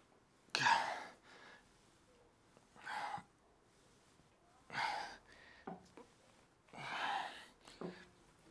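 A man's forceful, straining breaths, one with each rep of a set of seated dumbbell lateral raises: four hard puffs about two seconds apart.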